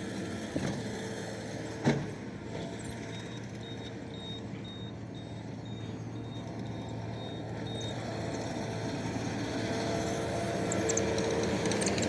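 Skid steer engine running steadily, growing louder near the end as the machine comes closer, with one sharp knock about two seconds in.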